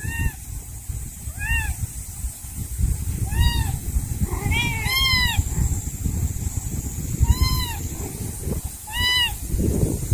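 A kitten about six weeks old mewing repeatedly, crying for its mother: about seven short high-pitched mews, each rising then falling, two in quick succession near the middle. A low rumble runs underneath.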